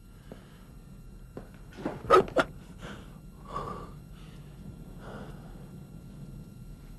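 A person breathing audibly: two sharp, loud gasps in quick succession about two seconds in, then a few softer breaths.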